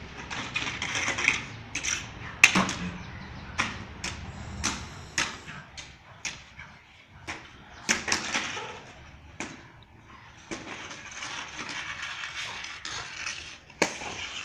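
Long-handled floor wiper dragged over concrete by a dog holding its head in its mouth: the head and metal handle scrape and clatter on the ground in irregular sharp knocks, with stretches of scraping between them. The loudest knock comes about two and a half seconds in.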